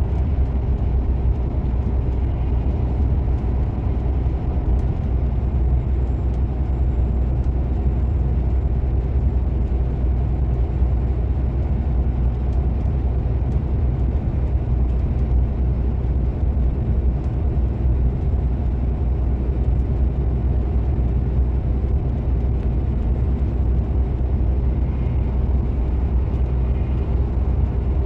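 Steady low drone of a loaded semi-truck's engine and tyres heard from inside the cab while cruising at an even speed, with a constant hum and no changes in pace.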